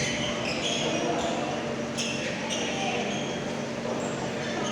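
Volleyball being hit and bouncing on a hard indoor court, with sneakers squeaking on the floor and indistinct voices echoing in a large hall; one sharp ball strike about two seconds in.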